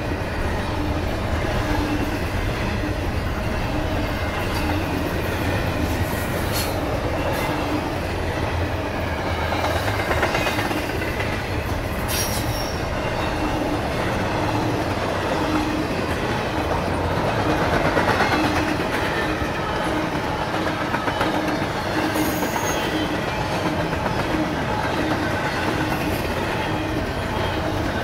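Intermodal freight train's double-stack and flatcar cars rolling past at speed: a steady rumble of steel wheels on rail with a regular beat, a few brief high squeals, and a swell in loudness about two-thirds of the way through.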